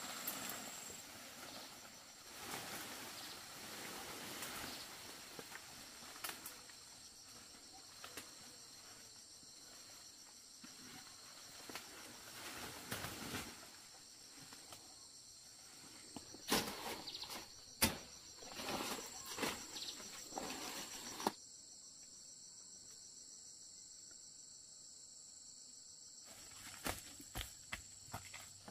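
Steady high-pitched chorus of insects, with scattered clicks and knocks, a cluster of them in the middle of the stretch.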